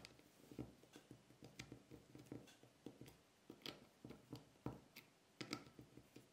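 Faint, irregular small clicks and ticks of a precision screwdriver turning a tiny screw at the Taptic Engine inside an iPhone 7.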